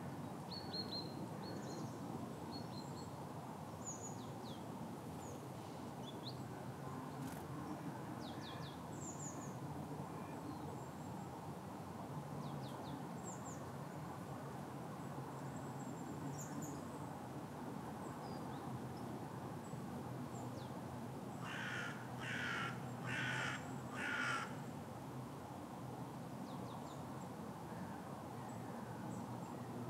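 A crow cawing four times in quick succession about two-thirds of the way through, over scattered short high chirps of small birds and a steady low background hum.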